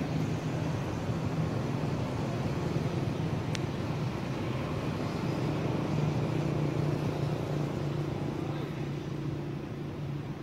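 Steady low engine hum, with a single sharp click about three and a half seconds in.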